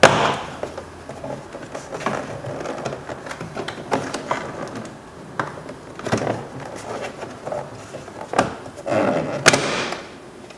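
Plastic door trim of a car's interior door panel being handled and worked loose: irregular clicks, knocks and short scrapes, with a longer burst of scraping near the end.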